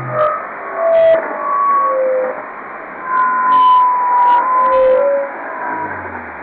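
Electronic glitch noise from a Max/MSP patch: a bed of static hiss with scattered pure tones at shifting pitches, some sliding slightly downward, and brief bursts of crackly noise several times. A long steady tone holds from about the middle, and a low tone slides down near the end.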